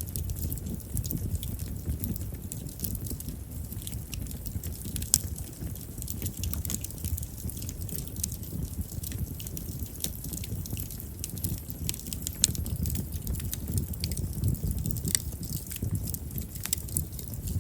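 A chestnut-wood campfire burning with a low steady rumble of flame and frequent small sharp crackles and pops, a few louder pops among them, about five and twelve seconds in.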